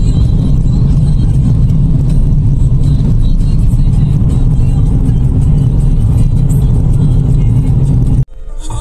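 Loud, steady low rumble of a car driving at speed, heard from inside the cabin. It cuts off suddenly shortly before the end, when music takes over.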